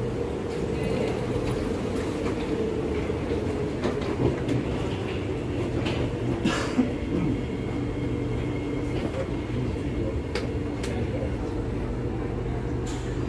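Singapore MRT train carriage at the platform, its doors open: a steady low hum and rumble, with a few clicks and knocks and one brief louder noise about six and a half seconds in.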